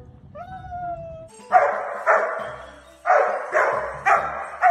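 A husky gives one short, drawn-out howl-like call that falls slightly in pitch. About a second and a half in, a dog barks about five times, in two groups.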